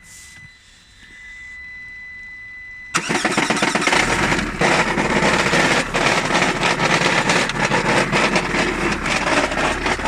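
A steady high beep, then about three seconds in the Lada Granta's engine is started and runs with a loud, dense, irregular clatter of knocks. This is the knocking of a flywheel that had come loose on its crankshaft, with a torn-off timing-belt tensioner roller and a stretched timing belt.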